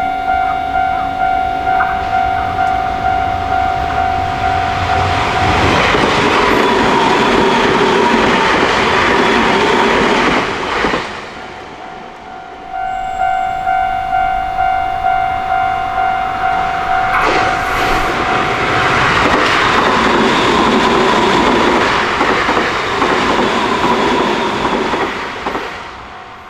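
Japanese level-crossing warning bell clanging over and over in a steady electronic tone. An electric train rushes through about five seconds in, with rattling wheels. The bell comes back clearly for a few seconds, then a second train passes from about seventeen seconds to near the end.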